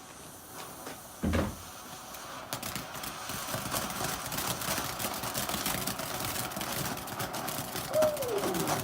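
A garden firework goes off with a dull thump, then crackles with rapid pops and clicks for several seconds.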